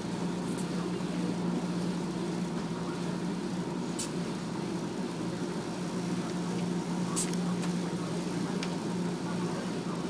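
Steady low hum of commercial laundromat dryers running, with two short sharp clicks about four and seven seconds in from a laundry card going into a Speed Queen dryer's card reader.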